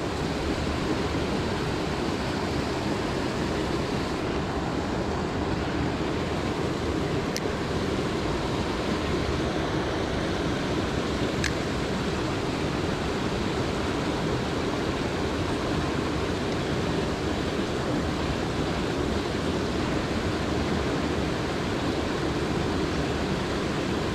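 Steady rush of a mountain creek's flowing water.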